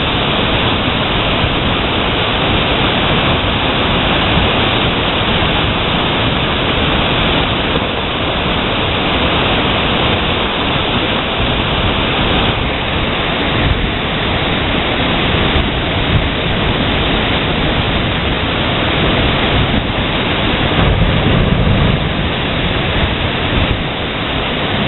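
Steady rush of the rain-swollen glacial river pouring out from under the Fox Glacier's terminal ice cave, with a short, deeper swell near the end.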